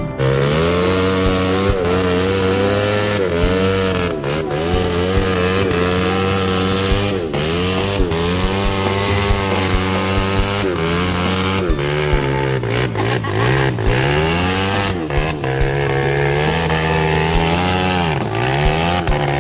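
Off-road vehicle engine revving hard, its pitch rising and falling again and again.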